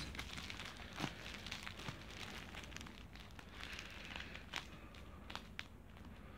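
Faint crinkling of plastic packaging being handled and opened, with scattered small clicks and crackles.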